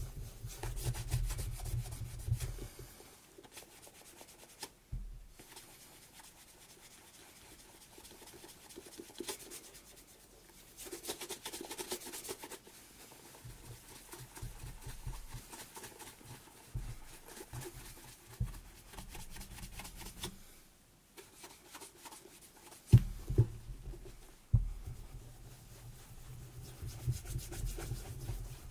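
Hand rubbing over a Thursday Boots President leather boot during conditioning and shining, in uneven scuffing strokes that come and go. Late on come two sharp knocks about a second and a half apart.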